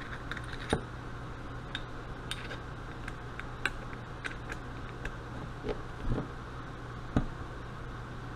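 Small metal clicks and taps of screws and a screwdriver against a Carter mechanical fuel pump's body as it is put back together, with a handful of sharper knocks, over a steady low hum.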